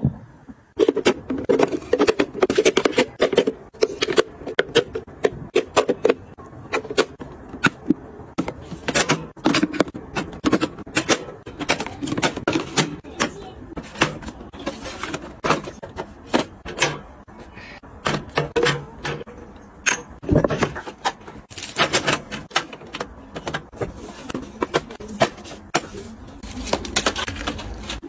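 Quick, irregular clicks, taps and clatter of skincare jars, bottles and small cardboard boxes being handled, set down and arranged on the mesh shelves of a storage organizer, with a softer handling rustle underneath.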